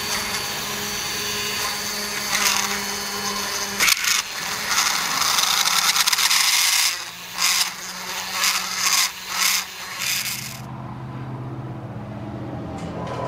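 Handheld power grinder running, grinding cracked JB Weld epoxy filler out of a two-stroke engine case. Toward the end it cuts in and out several times in short bursts, then the grinding stops and only a low hum remains.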